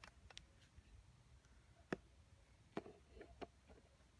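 Near silence broken by a few faint sharp clicks and taps, one about two seconds in and a small cluster shortly after, from fishing tackle being handled at the rod and reel.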